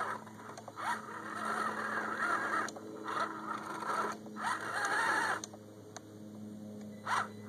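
Electric motor and drivetrain of a scale RC crawler (Axial SCX10) whining and revving up and down as its wheels spin in wet mud; the truck has a slipping rear axle. A few brief sharp sounds cut in, the loudest near the end.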